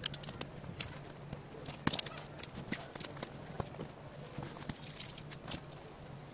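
Irregular small clicks, scrapes and snaps as a broken laptop LCD panel is pried apart along its edge with a utility knife and its metal frame and layers are pulled loose by hand. A steady low hum runs underneath.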